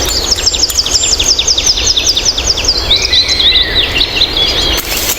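A songbird singing: a fast series of sharp, high, down-slurred notes, about seven a second, that turns after about three seconds into a shorter warbling phrase.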